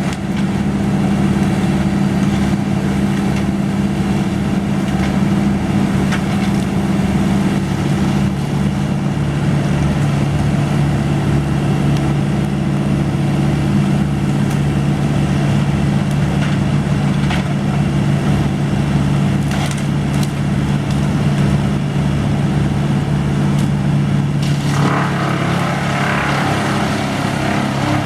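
A machinery engine runs steadily at a constant speed with a low, even drone. Near the end, a rougher hissing noise joins it.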